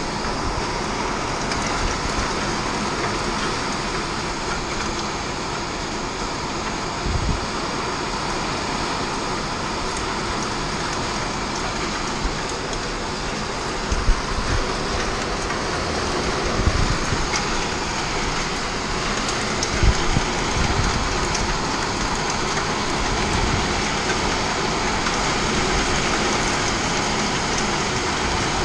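Hail and heavy rain pounding on a steel shipping-container house, heard from inside: a dense, steady roar with a few low thumps now and then.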